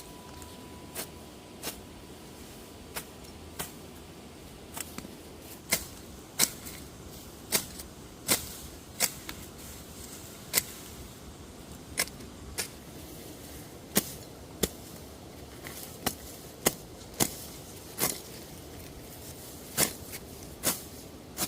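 A string of sharp knocks, irregularly spaced at about one to two a second, getting louder about six seconds in.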